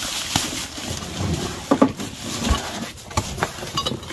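Objects being handled and shifted in boxes: scattered knocks, clunks and rustling, with a brief low voice-like sound about one and a half seconds in.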